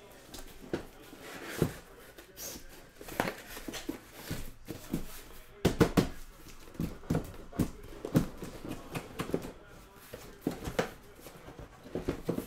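Cardboard case of sealed trading-card hobby boxes being handled and opened: irregular scraping, rustling and knocks of cardboard, loudest in a cluster of sharp knocks about six seconds in, with boxes slid out of the case near the end.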